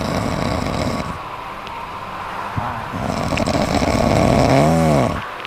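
A cat snoring: one raspy snore trails off about a second in, then a longer one begins about three seconds in and ends with a brief whistling tone that rises and falls.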